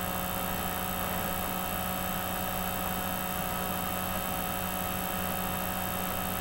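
Steady electrical hum and hiss with several fixed whining tones, unchanging throughout: the background noise of the recording setup.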